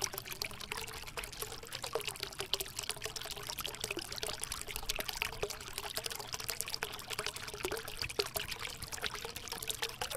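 Water trickling and splashing steadily down a small cement tabletop waterfall fountain into its basin, a continuous dribbling patter of drops.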